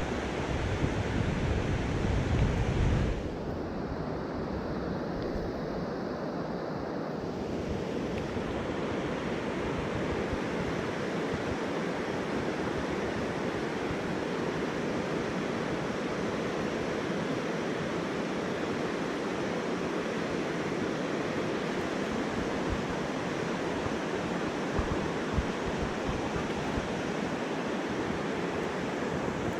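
Steady rushing of a mountain stream's flowing water, with a low rumble on top for about the first three seconds.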